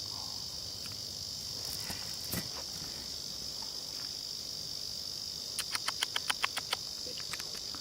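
Steady high-pitched drone of insects, with a quick run of about ten sharp clicks lasting just over a second near the end.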